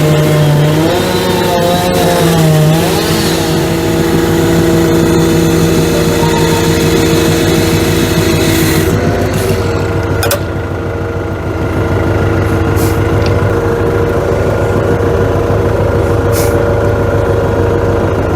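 A heavy vehicle's diesel engine running at raised revs while a log splitter is unloaded, its note wavering up and down for the first few seconds, then settling to a steady drone and shifting to a new pitch about nine seconds in.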